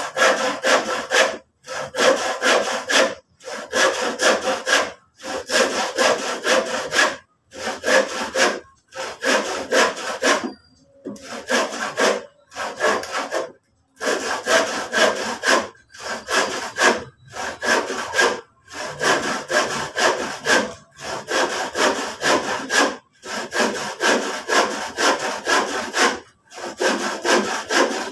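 Handsaw cutting through old recycled lumber, in rapid back-and-forth strokes that come in short runs with brief stops between them.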